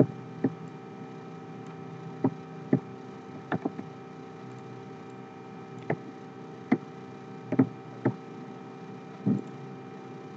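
A computer mouse clicking about a dozen times at irregular intervals, some in quick pairs, over a steady electrical hum.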